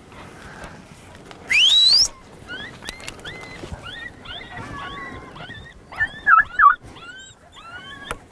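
Coyote vocalizations: a loud rising howl, then a run of short high yips and yelps, with a few loud wavering yelps about six seconds in.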